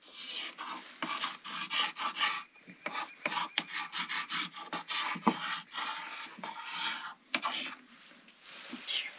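Dry rasping scrapes on a wooden turkey box call, in quick irregular strokes, as something small is rubbed against it; no yelps are made.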